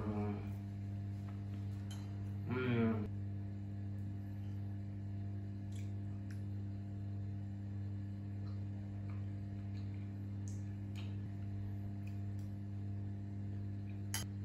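Soft background music held on steady sustained notes. A short hummed "mmm" of enjoyment comes about two and a half seconds in. Faint clinks of cutlery on a plate follow, with a sharper clink near the end.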